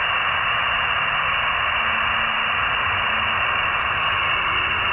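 Shortwave receiver static streamed from a WebSDR: a steady, even hiss of band noise with no signal keyed on it, cut off sharply above the voice range by the receiver's filter.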